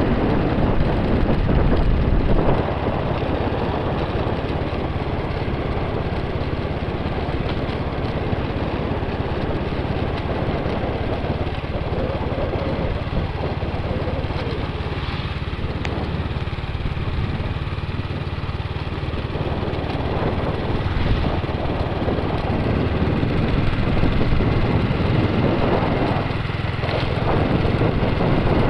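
Motorcycle engine running steadily while riding along a road, with wind rushing over the microphone. It drops a little in level about two and a half seconds in.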